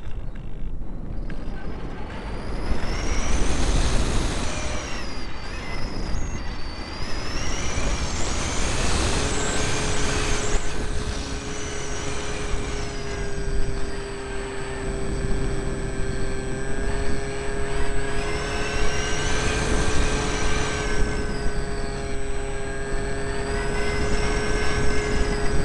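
Electric motor and propeller of an RC mini Cessna in flight, heard through the plane's onboard camera. A whine swells and falls back several times with the throttle, over heavy wind rush on the microphone.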